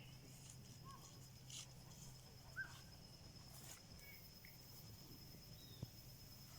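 Faint night ambience: crickets trilling in one steady high note, with a few short chirps and scattered faint clicks.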